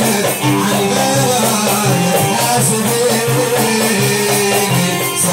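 Live Iraqi folk ensemble playing an instrumental passage: oud with hand drums keeping a steady rhythm.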